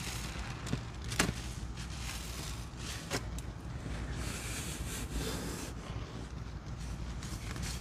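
Soapy sponges loaded with a thick, foamy baking-soda and soap paste being squeezed and worked, giving a wet crackling hiss with a few sharp pops about one and three seconds in, over a steady low hum.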